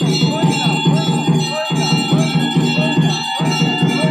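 Temple bells ringing steadily with devotional music, the whole sound dropping out briefly twice, about every second and a half.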